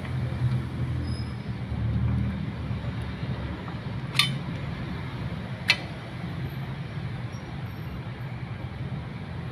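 Two sharp metal clinks, about a second and a half apart, from hand tools working on a drum-brake wheel cylinder, over a steady low vehicle rumble.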